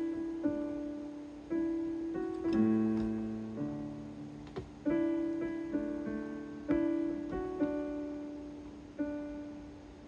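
Casio CT-S1 portable keyboard being played: slow notes and chords, each struck and left to fade, a new one about every one to two seconds.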